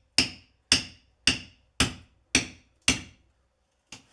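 Hammer striking a chisel to chip out brickwork, a steady blow about every half second with a short ringing clink on each. Six blows, then a faint tap near the end.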